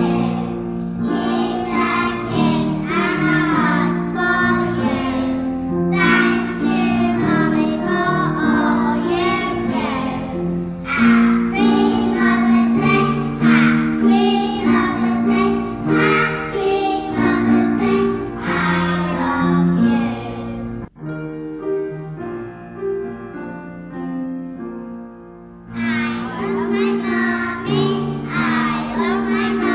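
A class of young children singing a song together over instrumental accompaniment. About two-thirds of the way through, the voices stop for a few seconds of quieter accompaniment alone, then the singing comes back in.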